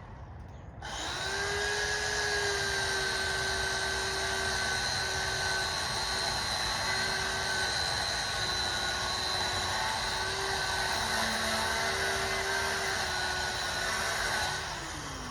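Electric power saw starting up and running steadily as it cuts into the tree trunk, with a high motor whine that wavers slightly under load for about thirteen seconds, then winds down with falling pitch near the end.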